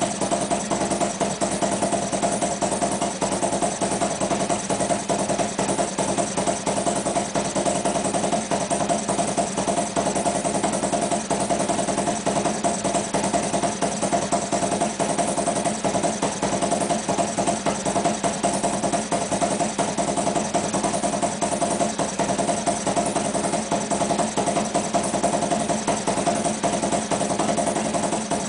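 Harley-Davidson V-twin engine idling steadily, with an even pulse that does not rise or fall.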